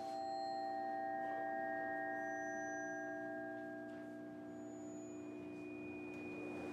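Computer-generated music of steady pure tones at several pitches at once. These are partials of a 128-voice piece built on the harmonic series, each partial entering and dropping out by chance: a low pair and a middle pair hold on while higher tones come in and fade at different moments.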